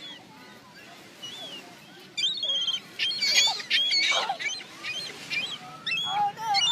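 Several seagulls calling over one another in short, sharp, repeated cries, starting about two seconds in after a quieter stretch.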